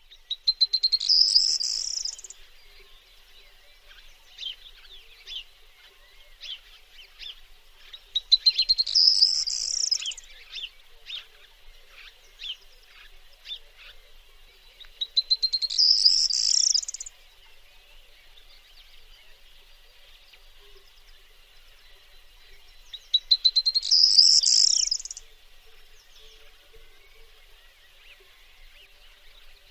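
Corn bunting singing: four songs about seven seconds apart, each a quickening run of ticks that ends in a brief jangling trill. Fainter chirps and a steady high background of other birds or insects fill the gaps between songs.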